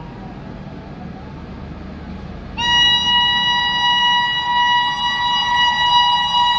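Train horn sounding one long, steady blast that starts suddenly about two and a half seconds in, over a low rumble.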